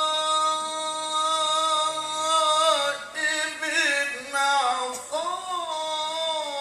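A man's solo voice in melodic Qur'an recitation. He holds one long steady note for the first two and a half seconds, then a winding ornamented run falls in pitch, then he rises into another held phrase.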